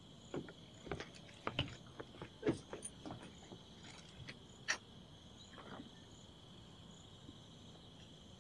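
Crickets trilling steadily in a high, even chorus, with scattered knocks and clicks over the first five seconds or so as people come in through the cabin's wooden door.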